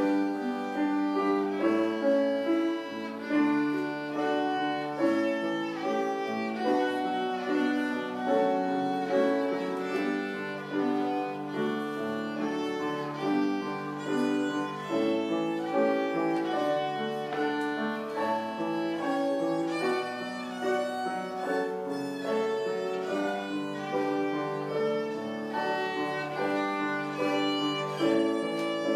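Violin playing a continuous melody with piano accompaniment.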